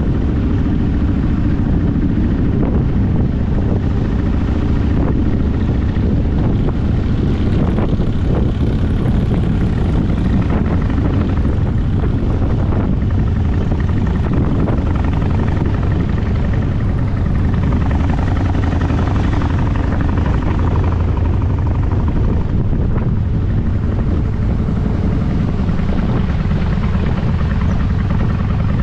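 Motorcycle on the move: a steady, loud engine drone and low rumble that holds even, without a break.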